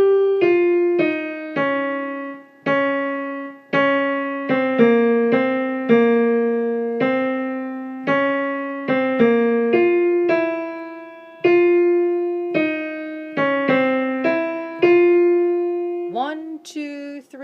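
Piano playing the lower alto line of a choral piece one note at a time, each note struck and left to fade, a little under one note a second.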